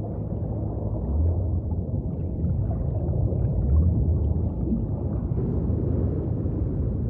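Deep, low rumbling ambient drone, with steady low tones that swell about a second in and again near the middle.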